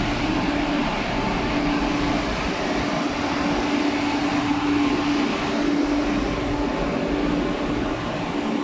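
Interior sound of an MTR East Rail line MLR (refurbished Metro-Cammell) electric multiple unit: a steady rumble and hiss, with a hum that fades in and out.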